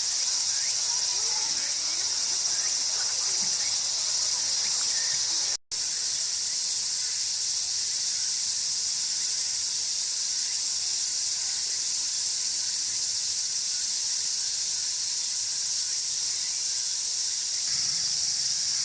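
A dense chorus of singing insects, a steady high-pitched shrilling that breaks off for a split second about five and a half seconds in.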